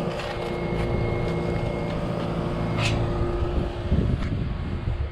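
Outdoor Trane heat pump units running: a steady mechanical hum and fan drone with a few steady tones, one of which stops about four seconds in.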